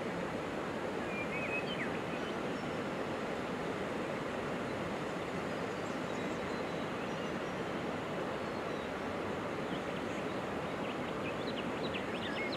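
Steady outdoor rushing noise, like wind or flowing water, with a few faint high bird chirps about a second and a half in and a small cluster near the end.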